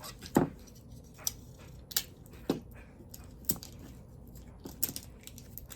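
Scattered light taps, clicks and crinkles of wrapped candy and cardboard being handled and pressed into place in a gift box.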